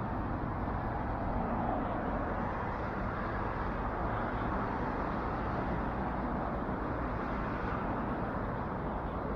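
Steady road traffic noise, an even hum with no single vehicle passing out clearly.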